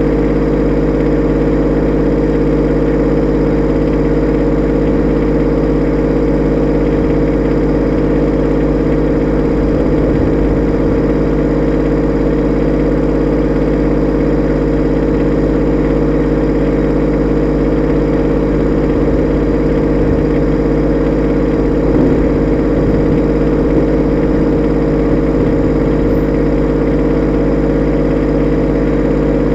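Kubota B2601 compact tractor's three-cylinder diesel engine idling steadily, with an even, unchanging hum.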